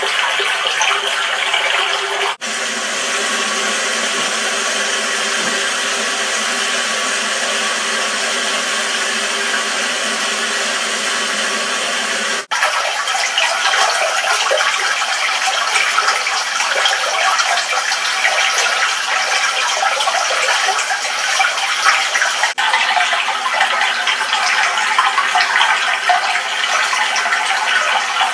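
Running water of a shallow stream rushing over rocks, a steady loud rush heard through a television's speaker. It breaks off for an instant about every ten seconds, and the sound of the water changes after each break.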